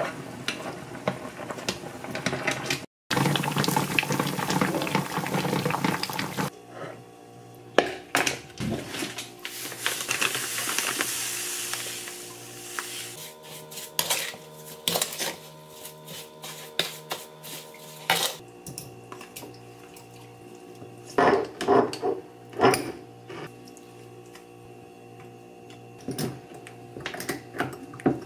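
Kitchen sounds of jar-sterilizing and preserve-making: rushing water for the first few seconds, then scattered clinks and knocks of a wooden spoon in a mixing bowl and of a wire-clasp glass jar being handled, over soft background music.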